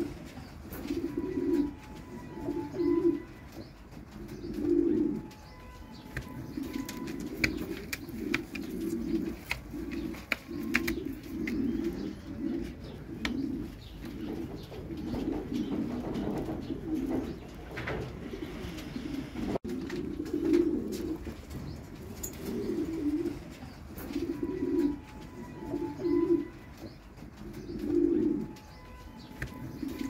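Pomeranian pouter pigeons cooing: low, repeated coos every second or two.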